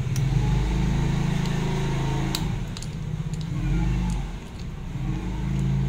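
A motor vehicle engine running with a low, steady drone that swells and eases, with a few light clicks over it.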